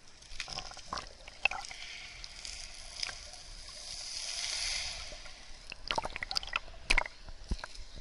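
Sea water sloshing and gurgling around a camera dipped in and out of the waves, with scattered sharp clicks and knocks of water against the housing. A hiss swells in the middle while it is under water, then more clicks come near the end.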